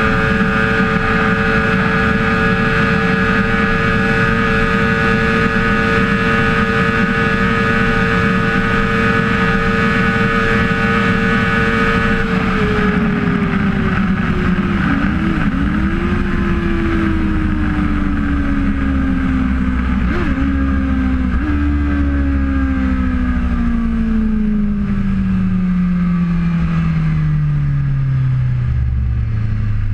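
BMW S1000RR's inline-four engine held at high revs with heavy wind rush at about 300 km/h. About twelve seconds in the throttle is rolled off: the engine note falls steadily as the bike slows, jumping up briefly a couple of times, and the wind rush dies away.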